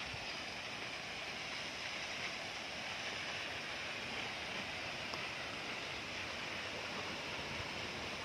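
Steady rushing of flowing water from a mountain stream, even and unbroken.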